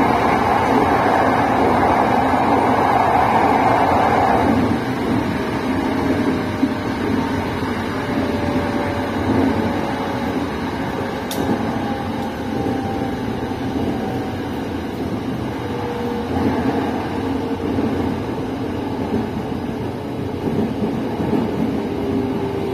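SRT Red Line electric commuter train running along the line, heard from on board: a steady rumbling rush of wheels and car noise, louder for the first four or so seconds. Faint motor whines slide slowly down in pitch through the rest.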